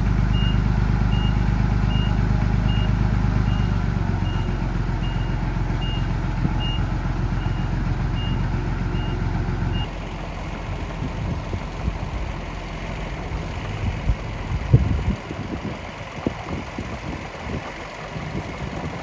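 Miniature dump truck reversing: a steady engine drone under an electronic reversing alarm beeping at one pitch about every three-quarters of a second. Both cut off abruptly about ten seconds in, leaving a quieter stretch with irregular knocks and crunches.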